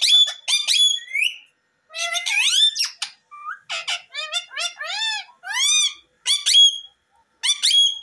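Rose-ringed parakeets calling: a quick string of high, whistled notes that rise and fall, some arched and some sweeping upward, in short runs with brief pauses between.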